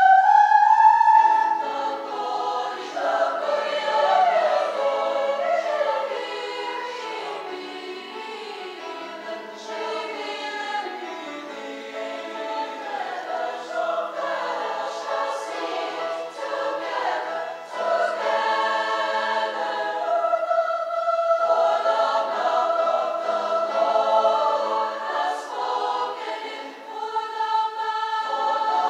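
Mixed high school choir, young men's and women's voices singing together in harmony, with held chords.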